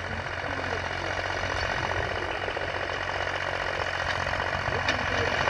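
Mahindra 265 tractor's three-cylinder diesel engine running steadily under load while pulling a tota hal plough through the soil, growing slightly louder as it comes closer.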